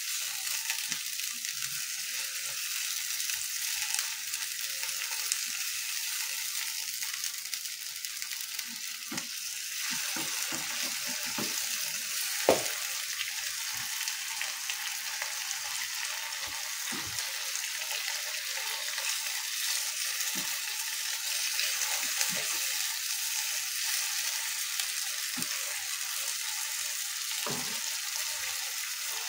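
Tofu, shrimp and chilli frying in a shallow sauce in a non-stick wok: a steady sizzling hiss. A spatula stirs at the start, and a few soft knocks are scattered through, the loudest about twelve seconds in.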